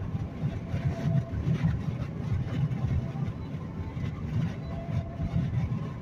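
Steady road and engine rumble heard inside a car cabin at highway speed.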